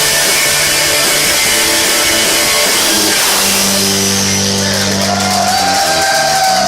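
Live punk rock band playing loud with electric guitars, bass and drums. About halfway through the band settles onto long held notes and the cymbal wash thins out toward the end.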